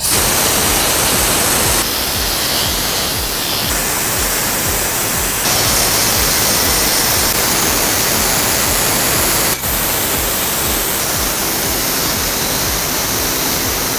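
Pneumatic right-angle grinder with an abrasive sanding disc grinding the bare steel of a Dana 44 axle housing: a loud, steady hissing grind as the surface is cleaned for welding, dipping briefly once about two-thirds of the way through.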